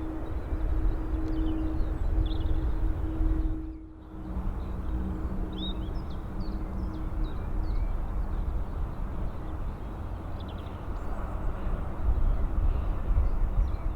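Jet airliner engines running at an airport, a steady low rumble with a hum, while small birds chirp now and then. The sound dips briefly about four seconds in.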